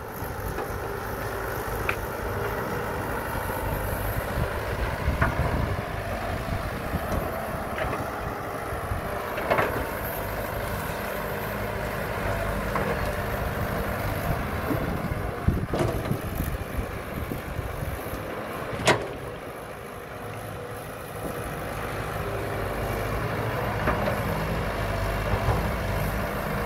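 Caterpillar E120B hydraulic excavator's diesel engine running steadily as the boom and bucket work, with a few sharp knocks and clanks from the machine. The engine sound dips briefly about two-thirds of the way through, then picks up again.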